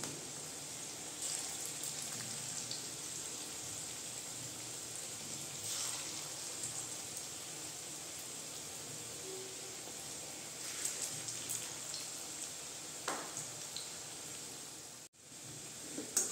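Cabbage pakoras deep-frying in hot oil in an aluminium kadai: a steady sizzle with scattered small crackles and pops, cutting out briefly near the end.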